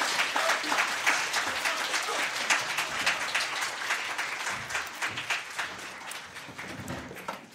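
Audience applauding, a dense clatter of many hands that gradually dies away and stops near the end.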